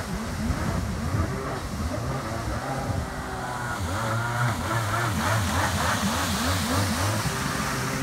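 A 1998 Kawasaki ZXI 1100 jet ski's three-cylinder two-stroke engine revving hard as the ski carves a tight turn and runs off. Its pitch repeatedly rises and falls as the throttle is worked.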